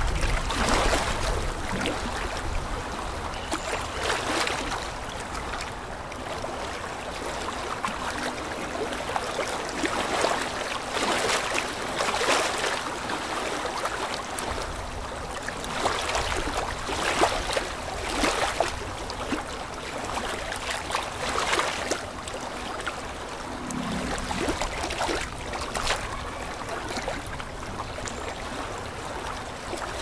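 Aquarium bubbling: an air-driven double sponge filter and an air stone sending bubbles up to break at the water surface, with irregular splashing and trickling over a faint steady hum.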